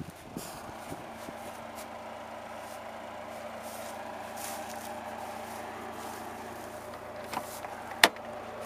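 A 1993 Mitsubishi Eclipse's four-cylinder engine idling steadily. About eight seconds in, a sharp click, the loudest sound, as the driver's door is unlatched and opened, with a smaller click just before it.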